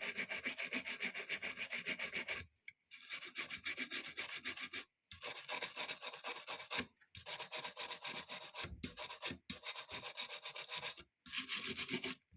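Rapid back-and-forth scrubbing strokes on a circuit board, stopping briefly four times.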